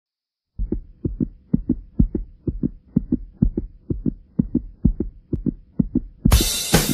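Heartbeat sound effect: a fast lub-dub of low double thumps, about two beats a second. About six seconds in, drum-kit music comes in over it.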